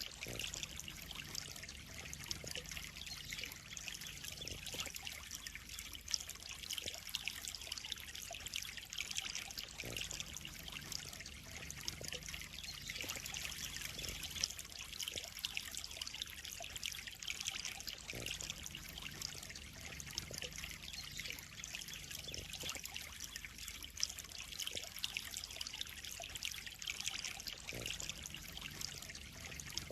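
Water trickling and splashing steadily into a koi pond, a continuous hiss with small scattered splashes.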